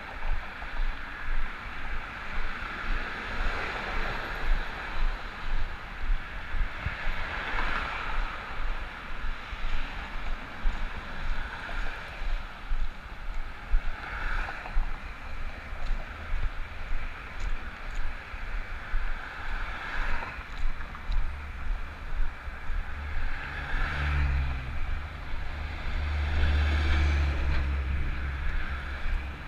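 Road traffic going by: cars passing one after another, each a swell of tyre and engine noise that rises and fades every few seconds, over gusty wind buffeting on the camera's microphone. About two-thirds of the way in, a low engine hum comes in and stays to the end, its pitch sliding down once.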